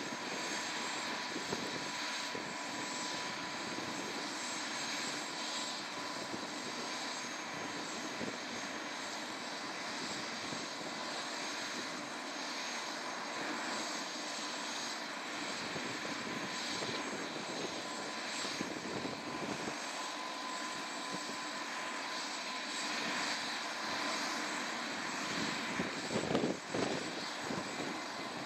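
Airbus AS350 Écureuil helicopter running on the ground with its main rotor turning: the steady whine and hiss of its turboshaft engine, with a steady high tone throughout. A brief louder whoosh comes near the end.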